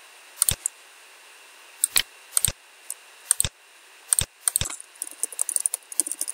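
Computer mouse clicks, several single and in quick pairs, then from about five seconds in a fast run of typing on a computer keyboard.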